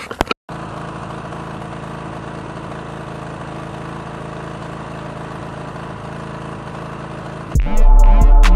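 Lawn mower engine running steadily at an even speed. Near the end, much louder electronic music with a heavy bass beat comes in.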